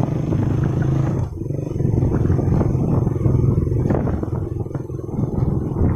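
Low, uneven engine rumble of a motor vehicle.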